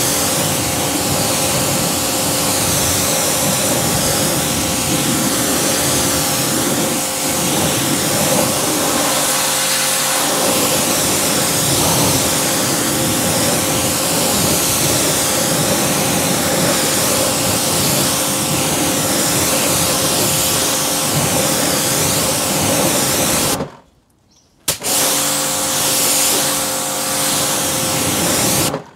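Pressure washer running, its jet hissing onto a car wheel to rinse off snow foam, with the steady hum of the pump motor underneath. It cuts out for about a second near the end, starts again, then stops.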